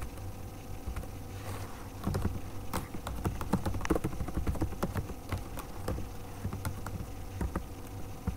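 Computer keyboard being typed on: irregular keystroke clicks beginning about two seconds in, over a steady low hum.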